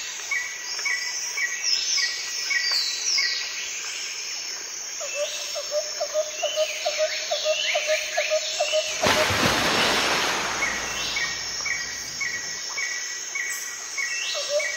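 Birds chirping and calling, with trains of quick repeated chirps. A loud rushing noise takes over about nine seconds in and fades after about three seconds.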